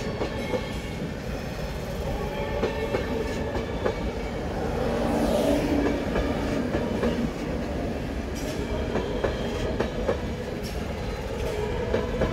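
Passenger coaches of a departing Nightjet train rolling past, with a steady rumble and wheels clicking sharply and irregularly over the track.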